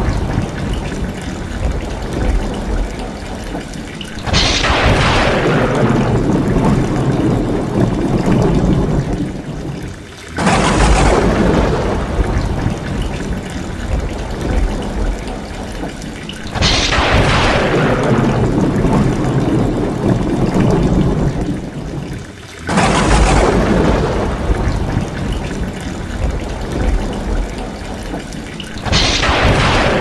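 Rain pouring off roof tiles in a steady splashing stream, with thunderclaps that strike five times at even intervals of about six seconds. Each clap is a sudden crack that fades into a rumble.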